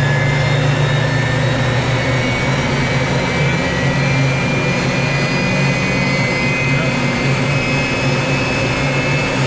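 BAC Strikemaster's Rolls-Royce Viper turbojet running steadily at low throttle, heard from the cockpit: a loud, even rush under a low hum, with a high whine that slowly rises in pitch.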